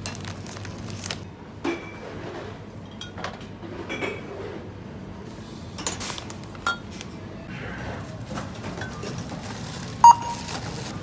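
Glass bottles knocking and clinking against each other and a wire supermarket trolley as they are handled, over steady shop background noise. Near the end comes one loud, short checkout beep.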